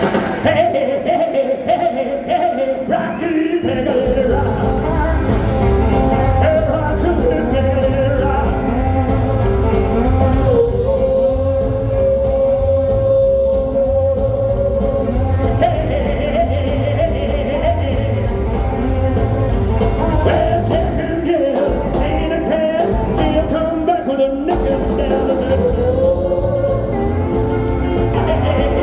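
Live rock and roll band playing with a lead singer. The full band with bass comes in about four seconds in, and there is a long held note in the middle.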